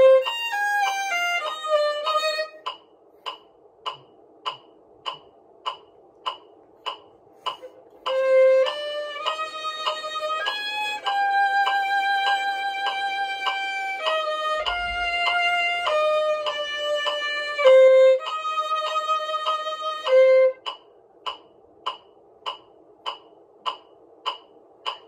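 Solo violin, bowed, playing a melody: a quick descending run, then about twelve seconds of sustained and moving notes. Two pauses in the playing are filled by short, even ticks about two a second.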